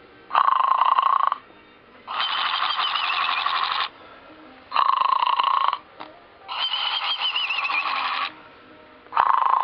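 Snoring Christmas toy dog playing its snore sound: a short raspy snore in, then a longer warbling whistle out, repeating about every four and a half seconds.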